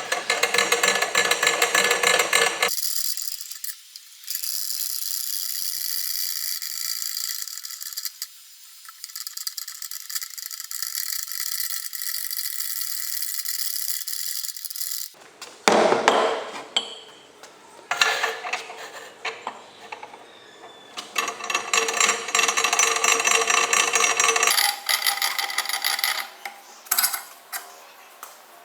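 Metal clicking and rattling from a homemade steel pipe vise being worked by hand, its handle turning the threaded screw rod against the jaws. There are several runs of rapid clicking, with a quieter higher-pitched stretch in the middle.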